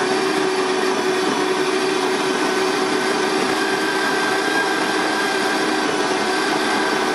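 Bodum Bistro electric burr grinder grinding coffee beans on its drip-grind setting: a steady motor whine that holds level without a break.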